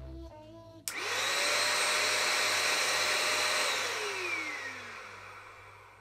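500 W canister vacuum cleaner switched on with a click about a second in. Its motor whines up to speed and runs steadily for a few seconds, then is switched off and winds down with a falling whine.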